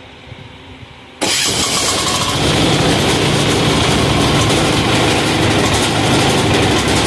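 186FA single-cylinder air-cooled diesel engine firing up at once on the electric start about a second in, then running steadily at about half throttle. The owner says it is probably still running on diesel left in the line rather than the motor-oil fuel.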